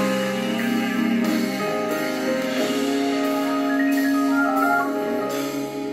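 Instrumental gospel music: held chords with higher melody notes moving over them.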